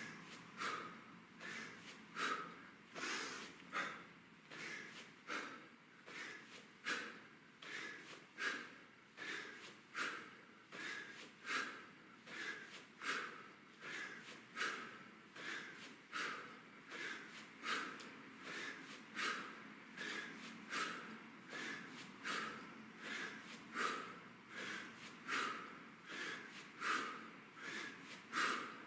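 A man's forceful, rhythmic breathing through the nose and mouth during two-handed kettlebell swings: a short, sharp exhale repeats evenly, roughly once a second, the breathing of hard exertion paced to each swing.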